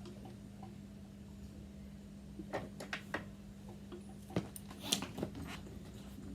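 Faint clicks and knocks from handling the Yamaha IT 490 dirt bike, coming in two short clusters, about two and a half and four and a half seconds in, over a steady low hum. The engine is not running after its fifth kick.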